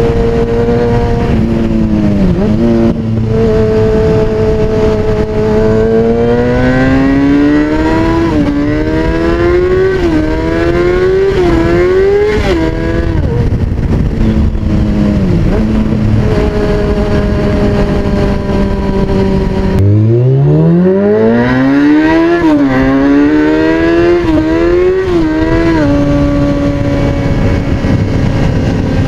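2003 Kawasaki ZX-6R's 636 cc inline-four engine, breathing through an aftermarket MotoGP-style exhaust, idling loud and then revved in two runs of quick throttle blips, the pitch climbing and dropping back each time before it settles to idle again.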